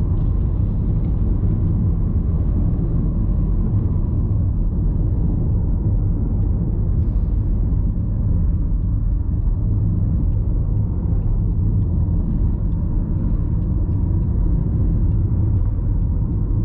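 A car driving along the road, with a steady low rumble of road and engine noise.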